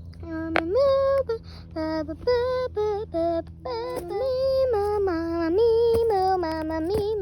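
A girl singing a wordless tune, holding notes and stepping up and down in pitch.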